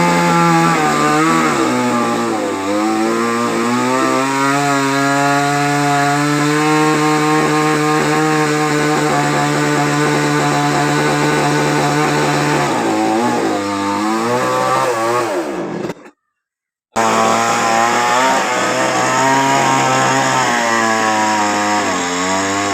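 Chainsaw running at high revs while cutting a coconut palm, its engine pitch mostly steady but dipping briefly several times as the saw loads in the cut. The sound breaks off completely for about a second roughly two-thirds of the way through, then resumes.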